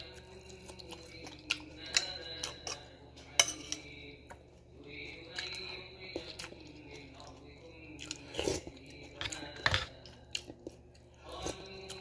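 A person biting into a fresh red chili pepper and chewing it, then chewing spoonfuls of food, with crunchy bites and a few sharp clicks scattered through.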